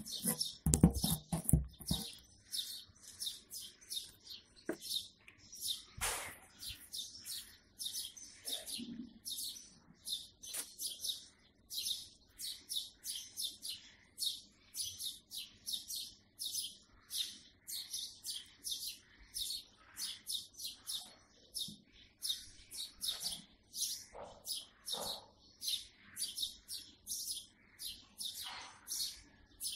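Small birds chirping steadily, several short high chirps a second. In the first two seconds a few louder knocks come from the stirring spoon hitting the metal cooking pot.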